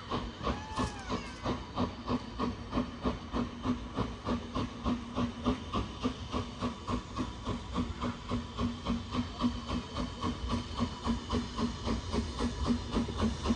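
Steam locomotive working steadily, its exhaust beats coming about four a second over a steady hiss of steam, growing louder near the end.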